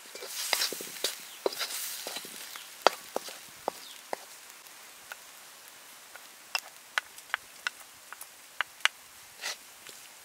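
Wooden spatula scraping and tapping against a metal wok as a thick curry paste is stirred, giving a run of sharp clicks and knocks, with scraping in the first couple of seconds.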